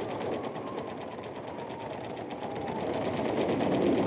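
Aircraft noise: a rapid, even mechanical rattle of about a dozen beats a second under a faint whine that slowly falls in pitch, growing louder toward the end.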